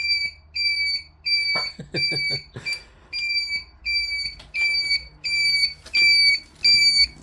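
Indicator flasher unit on a Honda GL650 Silverwing giving a high-pitched singing beep with every flash, about one and a half beeps a second. The unit is a cheap knockoff flasher that the owner thinks is dying and should not be making that noise.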